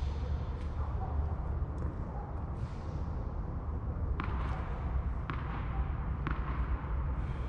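Tennis rally: sharp knocks of the ball off racket strings and the court, about one a second, faint at first and loudest in the second half, over a steady low rumble.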